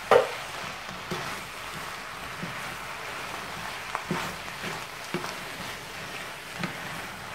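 Mince and vegetables sizzling in a frying pan while a spatula stirs them, with scattered knocks and scrapes of the spatula against the pan, the loudest knock right at the start.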